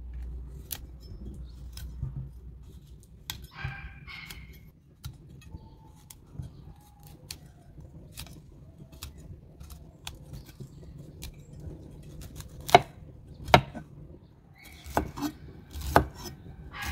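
Kitchen knife cutting fresh broccoli on a thick wooden board: scattered crisp snaps and cracks as the blade goes through stalks and florets, with several louder knocks of the blade on the wood in the second half.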